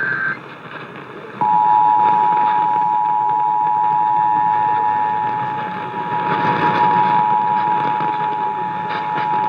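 The tail of an Emergency Alert System SAME header data burst, then about a second later the EAS two-tone attention signal comes on: 853 and 960 Hz sounded together, holding steady and loud. It is heard off AM radio with a hiss of static underneath.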